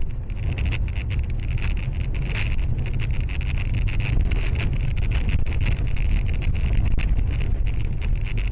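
Road and engine noise of a car driving on a snowy road, picked up by a dashcam inside the cabin: a steady low rumble with many small clicks and rattles throughout.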